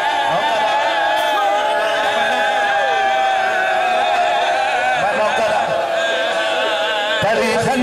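A man's voice chanting the drawn-out, mournful melody of a zakir's masaib recitation over a microphone and loudspeakers, holding one long note that slowly falls in pitch before the line breaks near the end.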